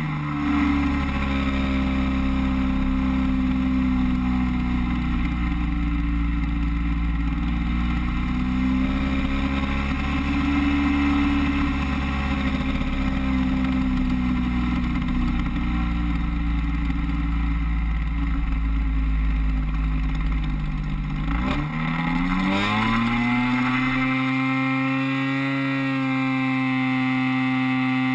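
DLE-30 single-cylinder two-stroke gas engine of an RC floatplane, heard up close from the aircraft, running steadily in flight with gentle rises and falls in pitch over a low wind rumble. About three quarters of the way through, the rumble stops and the engine's pitch dips, then climbs back to hold steady.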